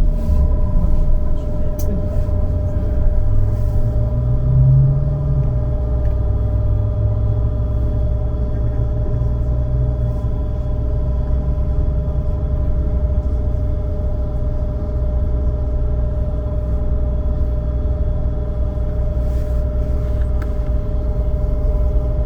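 Trolleybus running: a steady low rumble with a constant electric hum.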